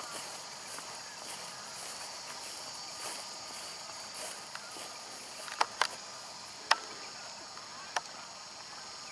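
Steady, high-pitched insect chorus from the surrounding bush, with four sharp clicks a little past halfway.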